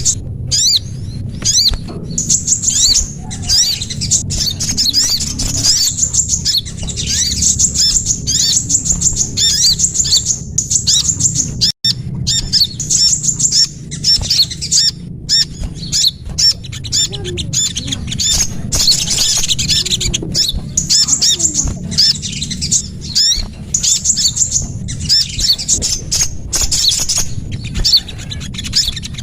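Small songbirds chirping in a bird-lure call recording: dense, rapid high chirps and short twittering notes, over a steady low rumble, with a brief drop-out about twelve seconds in.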